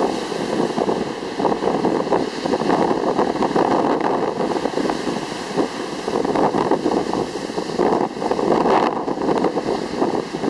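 Sea waves washing onto a stony beach, with strong wind buffeting the microphone. The noise swells and eases every few seconds.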